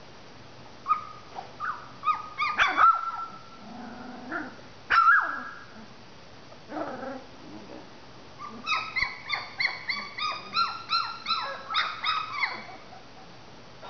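Three-week-old Labradoodle puppies whimpering and squealing: scattered short high cries in the first half, then a quick run of about a dozen cries, roughly three a second, near the end.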